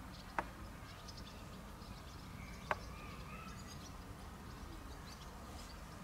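Two sharp wooden knocks a little over two seconds apart, as a goat tosses and tugs a fallen branch caught on its horns. Faint bird chirps sound over a low steady outdoor rumble.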